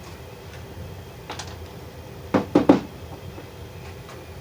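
Hand tools being handled: a faint click, then three quick, loud knocks and clatter about halfway through.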